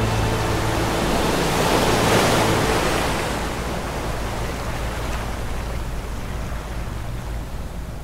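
Ocean surf: a wave washes in with a rushing hiss that swells about two seconds in, then slowly fades away.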